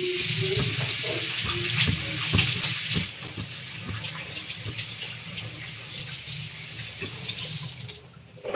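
Water running from a kitchen tap into a stainless steel sink while something is washed under the stream, with small knocks and clinks. The flow is loudest for the first three seconds, then quieter, and stops about a second before the end, followed by a short loud knock.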